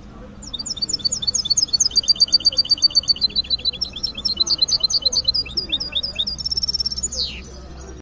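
A caged finch singing: a long, rapid run of high chirps and trills starting about half a second in, ending near the end with a single falling note.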